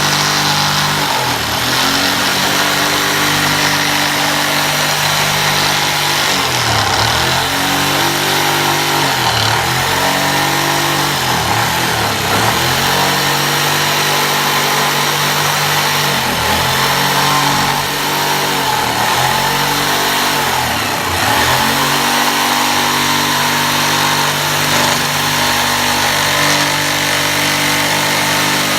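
A Mac Master 600-watt electric jigsaw runs continuously while cutting through wood. Its motor pitch dips briefly about half a dozen times as the blade loads up in the cut, then recovers.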